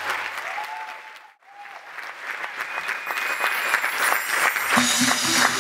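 Audience applauding and cheering at the end of a song, cutting out briefly about a second in and then swelling again. Near the end, the next song's music starts under the applause with a steady pulsing beat.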